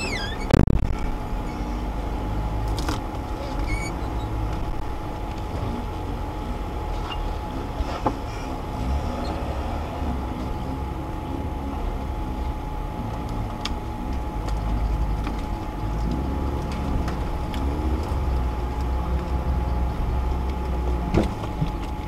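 Off-road vehicle's engine idling steadily, heard from inside the cabin, with a few sharp knocks, the loudest about half a second in.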